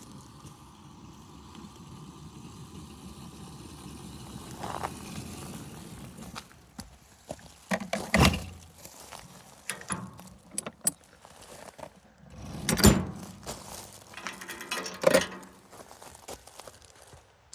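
A small electric locomotive's traction motors run with a steady hum for about six seconds. After that come scattered clicks and three loud knocks, about 8, 13 and 15 seconds in.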